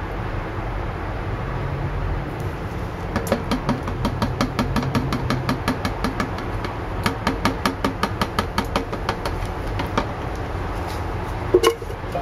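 Metal can of Plasti Dip knocking against the rim of a glass jar as it is held upside down and jiggled to drain the last of the rubber coating: two runs of quick knocks, about five a second, then one louder clunk near the end.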